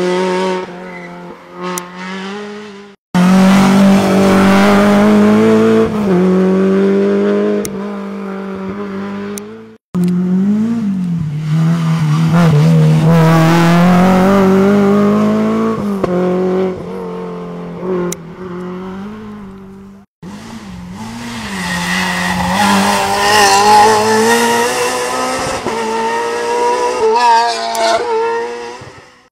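Rally car engines revving hard as several cars pass one after another, the pitch rising through the gears and dipping when they lift off for bends. The sound cuts off abruptly and restarts three times as it switches from one car to the next.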